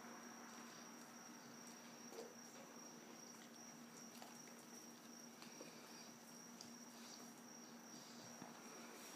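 Near silence: room tone with a faint, steady high-pitched whine and a low hum, and a few faint scattered ticks.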